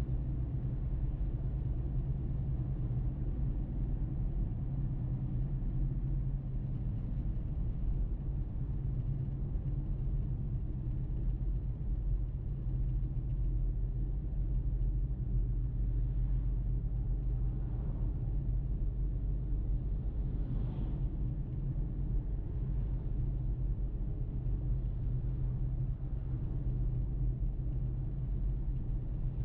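Car driving along a road: steady low road and engine rumble, with a few faint brief swells in the middle.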